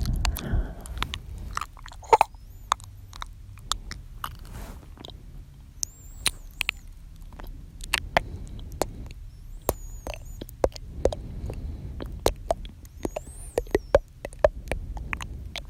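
Close-miked ASMR mouth sounds: a quick, irregular run of wet clicks and smacks from the tongue and lips, a few each second.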